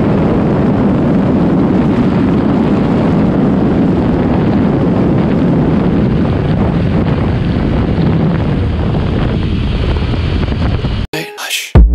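MV Agusta F3 800's three-cylinder engine under heavy wind rush on the helmet or bike camera at well over 200 km/h, easing slightly as the bike slows. About eleven seconds in it cuts off abruptly and chiming music begins.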